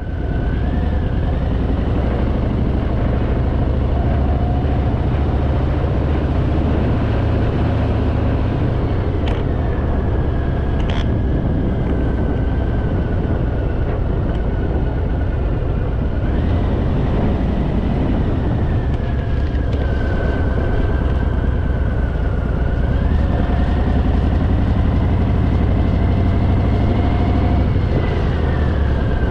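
Harley-Davidson Fat Boy's V-twin engine running at road speed under wind rumble. A thin whine rises and falls in pitch a few times as the speed changes, and there are two brief ticks.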